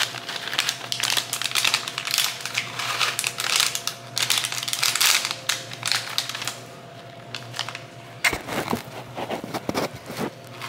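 Foil packet of candy-coated chocolate chips crinkling and crackling as it is handled and torn open, for about six seconds. Then quieter, with a few knocks near the end.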